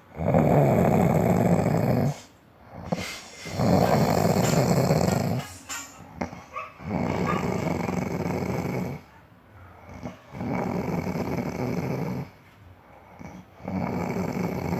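Snoring: five long snores of about two seconds each, coming about every three and a half seconds, with softer breathing between them.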